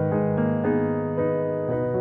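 Instrumental music without singing: a piano plays a slow run of sustained notes and chords, the harmony shifting about every half second.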